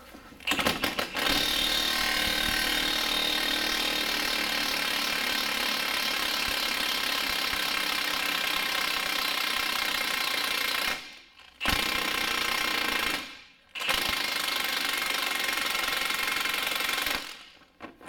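Milwaukee half-inch cordless impact gun hammering as it spins a rust-seized lower control arm bolt in its bushing sleeve, working to break the rust free. It gives a few short bursts, then runs steadily for about ten seconds, stops briefly twice and starts again each time.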